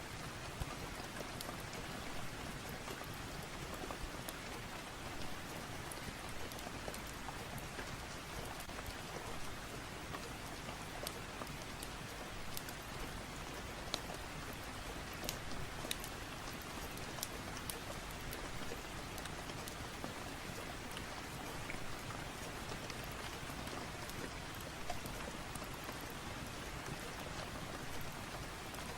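Steady rain falling, with scattered sharp crackles of a wood fire.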